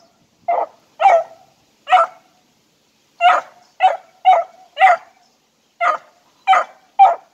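Four-month-old beagle puppy barking in short yelps, about ten in a row in uneven clusters, as she gives voice on rabbit scent at a log.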